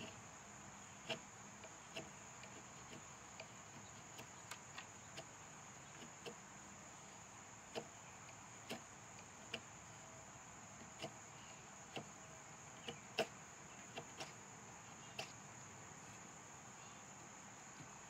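Swiss Army knife blade carving shavings off a thin wooden stick, giving short, faint scraping clicks at irregular intervals of about a second. Underneath runs a steady high-pitched drone of insects.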